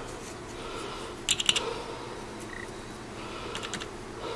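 A few light clicks and taps of small parts and tools being handled on a workbench, in two quick clusters: one about a second and a half in and one near the end.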